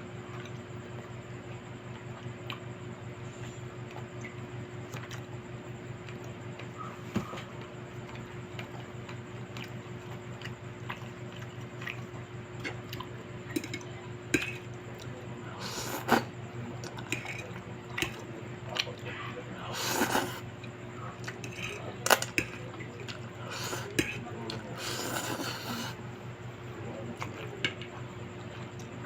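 Close-up eating sounds of spicy instant pancit canton noodles and chicken: wet chewing and slurping, with sharp clicks of cutlery against dishes. Sparse at first, busier and louder in the second half, over a steady low hum.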